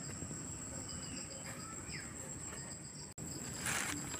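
Insects trilling steadily in the background, a thin high drone with faint rhythmic pulses, with a brief rustle near the end.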